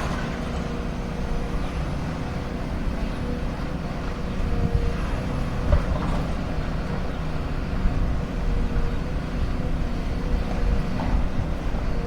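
Excavator engine running steadily with a low rumble and hum, with a few sharp knocks, about six and eight seconds in.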